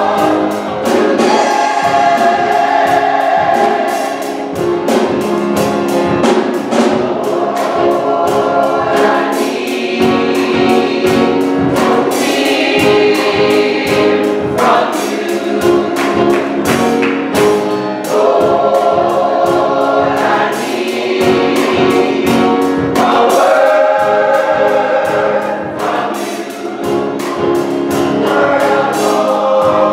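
Gospel choir singing together in harmony over a steady beat.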